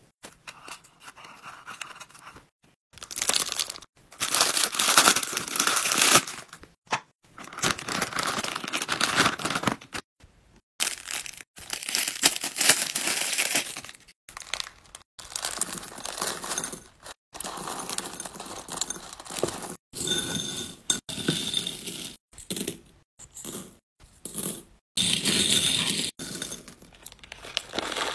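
Clear plastic packaging bags crinkling and tearing as they are handled and opened, in short bursts that stop abruptly.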